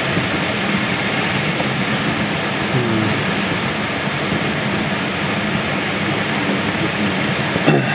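Steady rush of air over the canopy of a Schempp-Hirth Duo Discus glider in flight, heard from inside the cockpit, with one short knock near the end.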